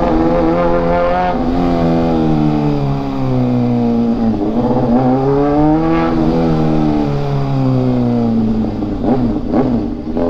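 Motorcycle engine running under way, very loud, its pitch rising and falling as it speeds up and eases off, with a sudden dip about a second and a half in.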